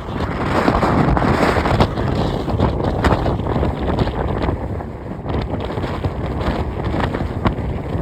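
Wind buffeting the microphone in a loud, gusting rumble, strongest in the first two seconds, with a few faint clicks throughout.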